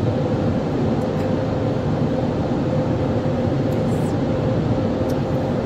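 Automatic tunnel car wash heard from inside the vehicle: water spray drumming on the windshield over the machinery's steady running noise, with a steady hum and a few faint ticks.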